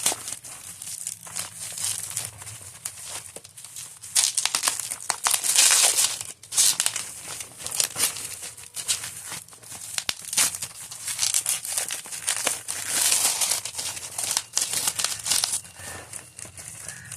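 Packaging of a wireless keyboard and mouse crinkling and rustling as it is handled and unwrapped, in irregular bursts, with louder stretches about four to six seconds in and again around twelve to fourteen seconds in.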